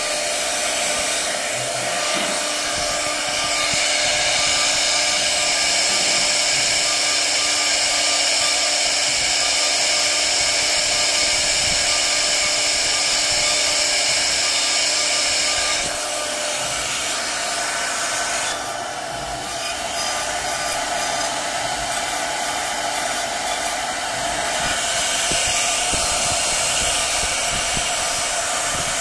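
Handheld electric power tool running continuously as it works along a large timber beam: a steady high motor whine over a rushing noise. It eases off a little just past halfway and picks up again near the end.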